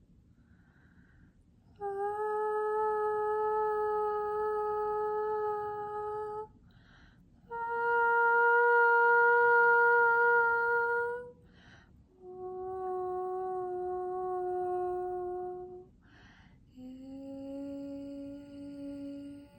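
A woman's voice toning: four long held notes, each a few seconds, with a breath drawn between them. The second note is the highest and loudest, and the last is the lowest.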